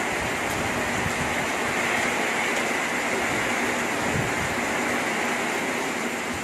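Strong cyclone wind with heavy rain, a steady rushing hiss that neither builds nor breaks.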